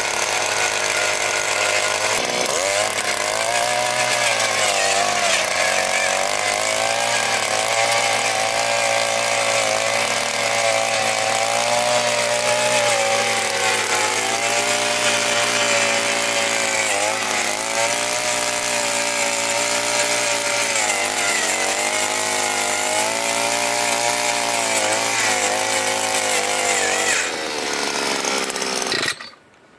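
Takyo TK-2P earth auger's 52 cc single-cylinder two-stroke engine running hard while its 20 cm auger bores into rock-filled, very hard soil; the engine pitch sags and recovers again and again as the bit bites under load. The sound cuts off abruptly near the end.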